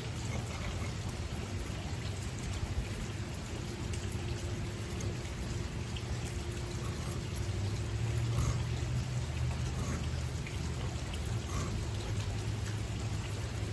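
Steel broadhead blades scraped across a coarse 325-grit diamond sharpening stone, a continuous gritty rasp of short sharpening strokes, over a steady low hum.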